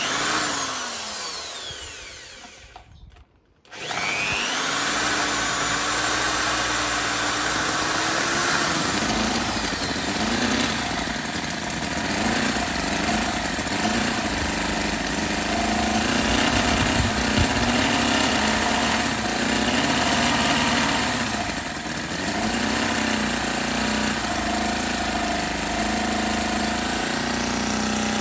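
Scale model four-cylinder Morris engine with a model-aeroplane carburettor. It fires up at once, then runs down with falling pitch and stops within about three seconds. It starts again about four seconds in and keeps running, its revs rising and falling repeatedly as the throttle is adjusted, and it settles to a steadier speed near the end.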